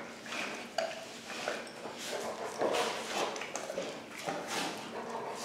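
English Mastiff bitch in labour moving about restlessly, with a run of short breathy sounds about once or twice a second and a few light clicks.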